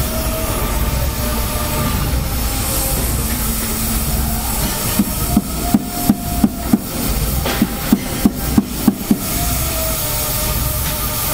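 Oxy-fuel cutting torch flame hissing steadily while cutting steel rebar, with a run of about a dozen sharp taps a few at a time a second, starting near the middle and stopping shortly before the end.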